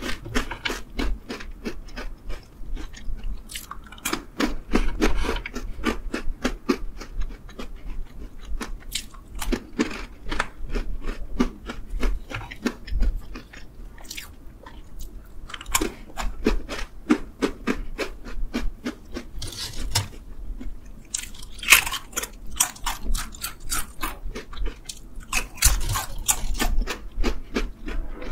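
Close-miked crunching and chewing of crisp snacks, chocolate-coated pretzels and purple sweet potato chips, with many sharp crunches in quick succession and a few louder bites.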